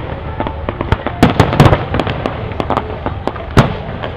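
Aerial fireworks shells bursting in a string of sharp bangs, a quick cluster between about one and two seconds in and a single loud bang about three and a half seconds in.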